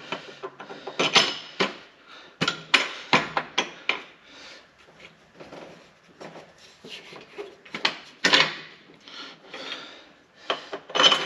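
Ratchet wrench clicking and metal tools scraping and clinking as the bolts of a Caterpillar 3406B's aftercooler/intake housing are run in and tightened. The sounds come in irregular short spells, with the loudest about a second in, around three seconds in and about eight seconds in.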